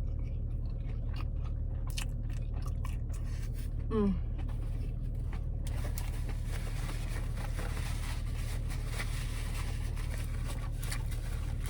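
A person chewing and biting food close to the microphone, with small crunchy clicks and a short hummed "mm" that falls in pitch about four seconds in, over a steady low hum. A soft hiss comes in about halfway through.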